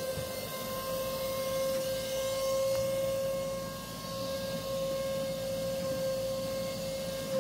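A steady machine whine holding one pitch with a few fainter overtones, over a hiss of rushing air.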